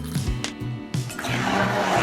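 Background music with a steady beat; a little over a second in, a loud, steady rushing noise comes in over it.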